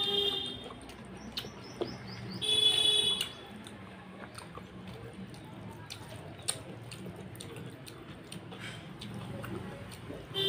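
A hand squishing and mixing rice with curry gravy on a plate, with small wet clicks and chewing. A short horn-like tone sounds briefly about two and a half seconds in, louder than the eating.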